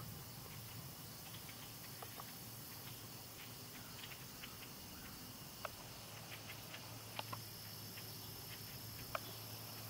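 Faint insect chorus, crickets trilling steadily, with scattered light ticks and a few sharper clicks. A low hum comes in about two-thirds of the way through.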